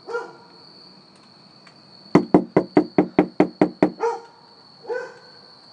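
A hand knocking rapidly on a wooden door, about nine quick raps in under two seconds. A dog answers with short barks, one at the very start and two just after the knocking.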